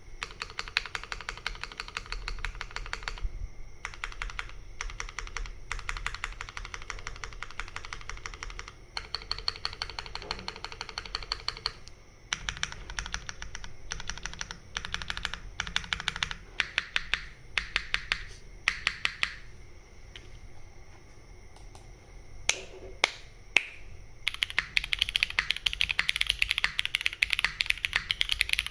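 Typing on a custom mechanical keyboard with lubed, broken-in Cherry MX Black linear switches on an aluminium plate under GMK doubleshot ABS keycaps: quick runs of key strokes with short pauses between them and a few louder single strokes. A faster, denser run of typing starts near the end.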